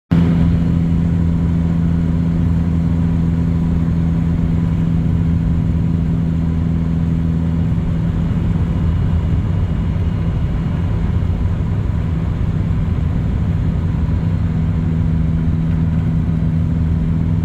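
Turbocharged Honda's engine running at a steady speed, a constant low drone with rumble underneath.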